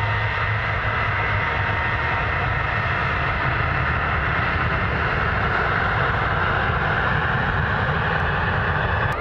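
Airliner's engines running loud and steady, a dense rumble with a high whine that drifts slowly in pitch.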